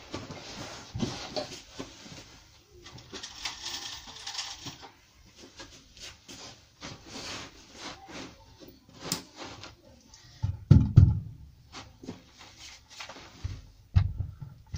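Rustling and handling noises with scattered knocks and clunks as tools and timber are moved about, the loudest a couple of heavy thumps about two-thirds of the way through.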